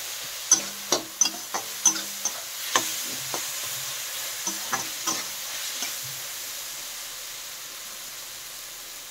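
Slotted metal spatula clacking and scraping against a metal kadhai as a tomato-and-spice masala is stirred, over a steady frying sizzle. The strokes come quickly at first, thin out, and stop about six seconds in, leaving only the sizzle.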